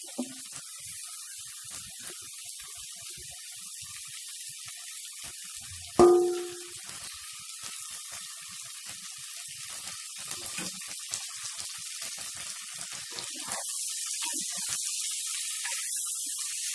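Mushrooms, onion and green pepper sizzling in a clay pot, a steady hiss. About six seconds in comes one sharp, ringing metallic clang, and near the end the sizzle grows louder as the vegetables are stirred with a ladle.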